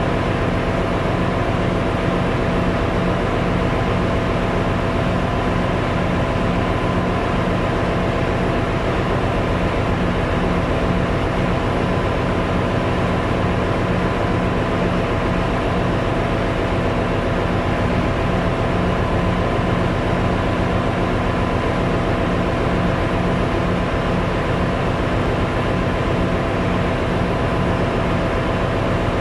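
Steady, loud engine-room machinery noise aboard a cargo ship, with a constant low hum and a few steady tones. It comes from the running auxiliary machinery, since the main diesel engine is stopped with its crankcase doors open.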